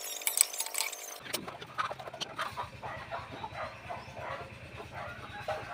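A metal ladle clinks against an aluminium cooking pot a few times in the first second, the loudest clink a little under half a second in. Chickens cluck in short, irregular calls through the rest of the time.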